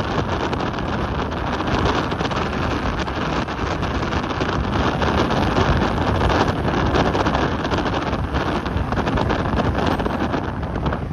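Steady wind noise buffeting the microphone of a camera moving along a road, with traffic sound underneath.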